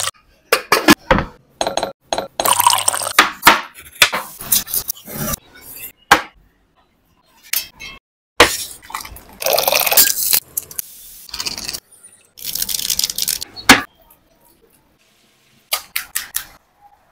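Kitchen cooking sounds, clinks of dishes and utensils among them, in short bursts that start and stop abruptly with silent gaps between.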